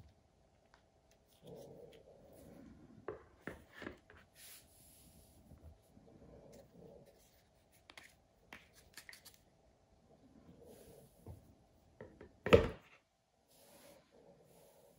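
Plastic case of a Wera Tool-Check Plus bit and socket set handled in the hands: rubbing and scattered light clicks from the case and its bits. One loud knock near the end as the set is put down on the wooden floor.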